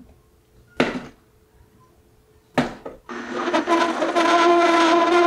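Two short knocks, then from about three seconds in a Nama J2 cold-press juicer runs with a steady, loud whining hum as it presses apples and cabbage.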